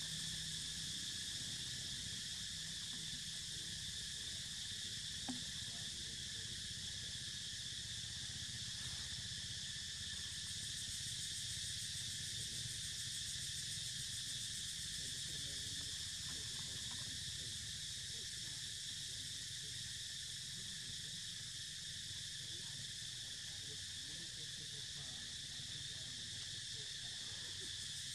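Steady chorus of insects: a continuous high-pitched buzz holding a few even tones, over a faint low rumble.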